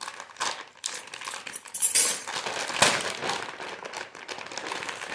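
Plastic packaging being pulled open, with crinkling and sharp crackles, loudest in a couple of snaps around the middle.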